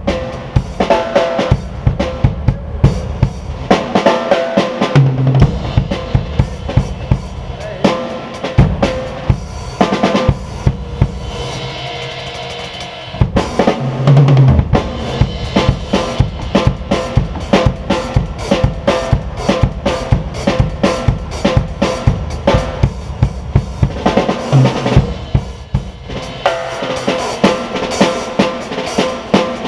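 Drum kit being played: a busy run of bass drum and snare hits with rimshots. There is a short, slightly quieter stretch with a ringing wash about eleven seconds in before the beat picks back up.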